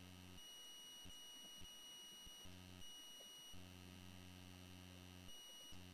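Near silence: a faint steady electrical hum and a thin high-pitched whine, the noise floor of the recording, which cut in and out in turns a few times.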